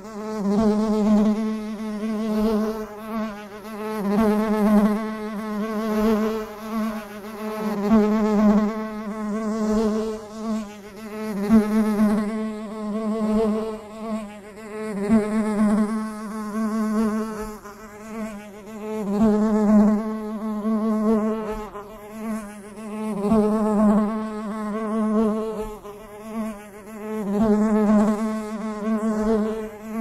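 Bee buzzing in flight: a steady, pitched wingbeat drone that swells and fades every few seconds.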